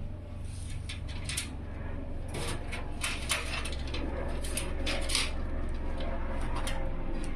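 A series of short scrapes and clicks, like objects being handled, over a steady low hum.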